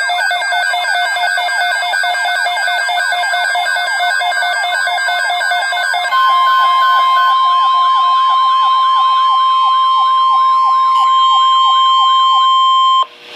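Layered electronic emergency alert sounds: several fast, repeating siren sweeps over pulsed beeping alarm tones. About six seconds in, a steady long alert tone of the kind a weather radio sounds for a watch or warning starts under the rising-and-falling siren sweeps. Everything cuts off together just before the end.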